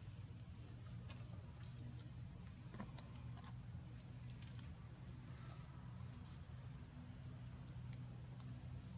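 Steady high-pitched drone of insects, with a low steady hum underneath and a few faint ticks.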